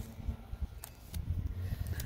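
Fingernail picking and scratching at the edge of electrical tape wrapped on a PVC pipe joint, giving a few small sharp clicks, over an uneven low rumble on the microphone.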